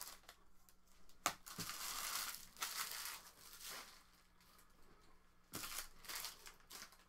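Plastic card packaging being handled and crumpled: two sharp clicks just over a second in, then two spells of crinkling rustle.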